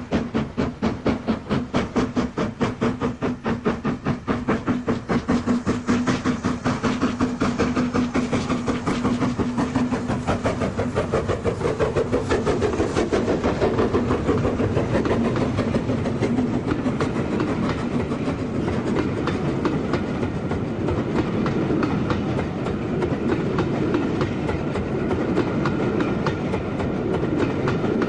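BR Standard Class 4 steam locomotive working, its exhaust beats quickening steadily as it gathers speed, until they blend into a continuous train rumble about halfway through.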